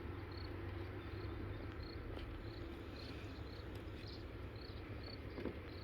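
A cricket chirping steadily, about two short high chirps a second, over a low steady rumble.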